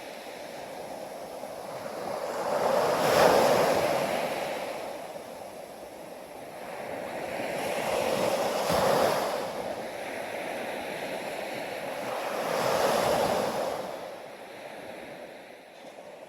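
Ocean waves breaking on a beach: three waves swell and wash in, about every five seconds.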